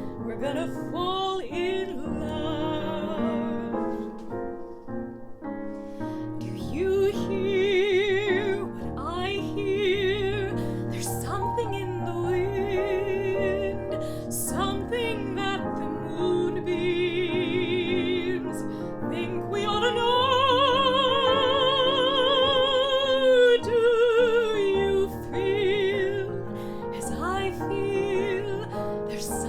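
A woman singing in an operatic style with wide vibrato over piano accompaniment, holding one long note about two-thirds of the way through.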